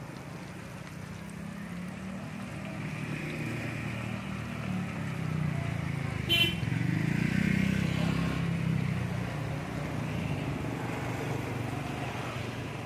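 A motor vehicle passing, its engine hum swelling to a peak about two-thirds of the way through and then easing off, over the steady sizzle of chicken deep-frying in a pan of oil. A single sharp clink comes just past the middle.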